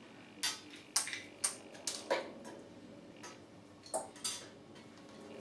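Light, irregular clicks and taps of wooden toothpicks against the mouth of a glass bottle as they are pushed in, about eight in all.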